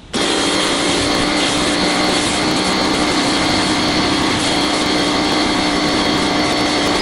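Pressure washer running steadily while its 40-degree nozzle rinses foam off a car, a constant motor hum under the hiss of the water spray. It starts abruptly and cuts off abruptly.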